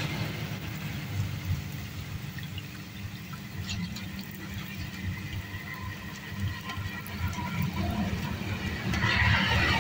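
Peanut rempeyek batter frying in hot palm oil in an aluminium wok: steady sizzling and crackling of the oil, louder near the end. A few light clinks come from the metal slotted skimmer against the wok.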